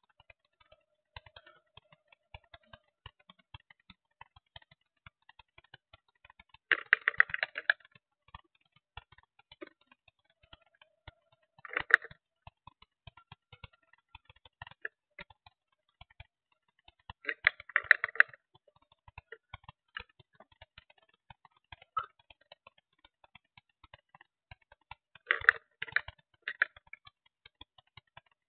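Light, irregular clicking throughout, with four short bursts of louder crackling several seconds apart: rubbing and handling noise close to a keychain camera's microphone, the camera strapped to an RC transmitter in use.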